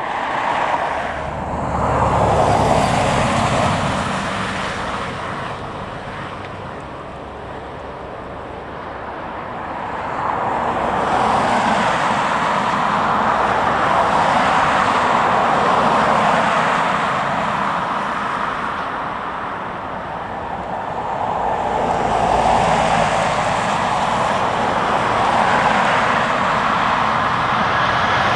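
Jet airliner engine noise, a continuous rush that swells and eases several times.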